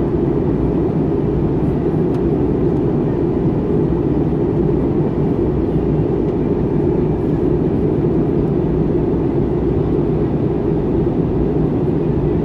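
Airbus A320 in flight, heard from inside the cabin beside the wing: steady, low engine and airflow noise that does not change.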